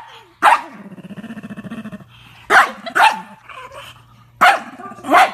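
A dog barking five sharp times, with low growling between the barks, as dogs do while play-fighting.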